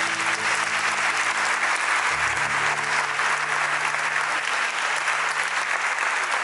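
Crowd applauding, with sustained low instrumental music underneath; a new low note comes in about two seconds in.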